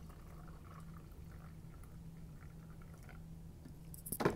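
Coffee being poured from a coffee-maker carafe into a mug, a faint trickle over a steady low hum, with a single sharp knock near the end.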